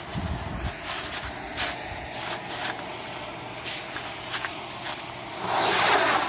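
Scattered sharp crackles, then a little over five seconds in a homemade sugar rocket motor ignites with a loud hissing whoosh lasting under a second.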